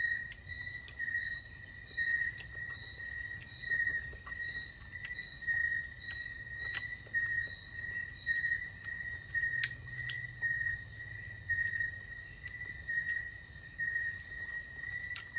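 An insect trilling: one steady high note that swells and fades about twice a second, with faint scattered clicks.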